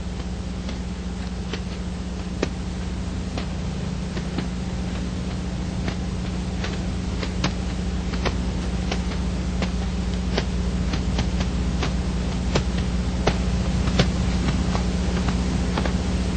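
Steady low hum and hiss of a worn old audio track, with scattered sharp clicks and crackles that come more often toward the end.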